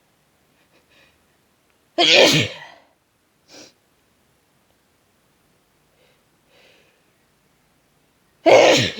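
Two harsh sneezes from a person with a head cold, about six seconds apart, the second coming near the end.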